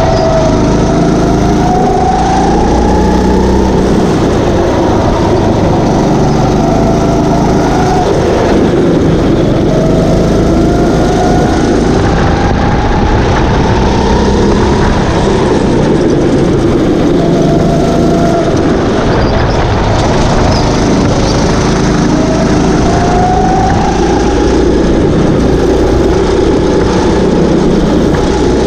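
Go-kart engine running hard. Its pitch climbs several times as the kart accelerates and drops back between climbs.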